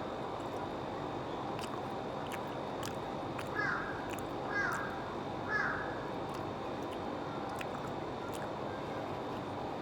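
A crow cawing three times, about a second apart, over a steady background hum.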